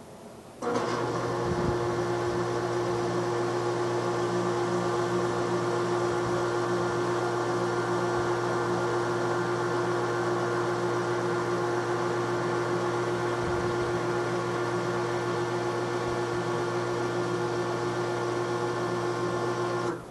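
A machine's steady hum with a strong fixed tone. It switches on abruptly about a second in and cuts off suddenly at the end.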